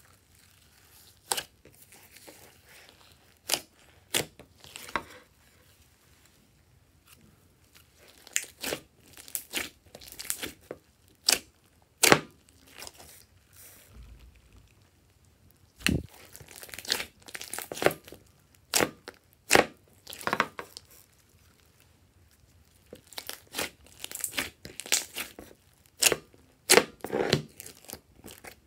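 Glossy slime mixed with foam beads being squeezed, stretched and peeled by hand: irregular clusters of sticky pops, crackles and tearing sounds, with short quiet gaps between them.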